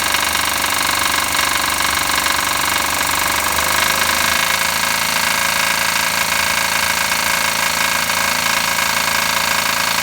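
Blown engine idling loudly and steadily with a heavy mechanical knock that an oil additive in the crankcase has not cured; the owner takes it for worn-out bearings ("metal").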